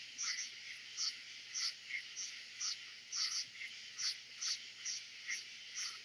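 Night chorus of katydids, crickets and frogs blended into one sound. A steady high-pitched buzz runs underneath short, sharp pulses that repeat about twice a second in an uneven rhythm.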